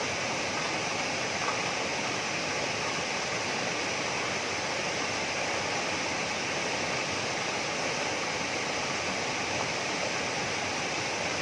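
Steady rush of water from a waterfall, with no change throughout.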